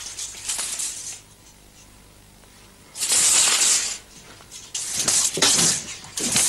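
A long, flexible metal spring sword being swung, making hissing swishes: three of them, the first about three seconds in and the last near the end.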